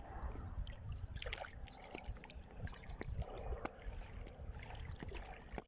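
Faint water lapping and trickling, with scattered small clicks over a low rumble.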